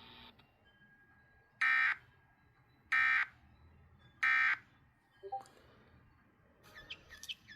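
Emergency Alert System end-of-message code: three short, harsh bursts of two-tone digital data, about 1.3 seconds apart, marking the end of the alert.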